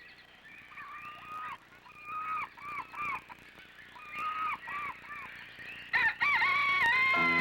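Rooster crowing several times, the last crow about six seconds in louder, with a long held final note.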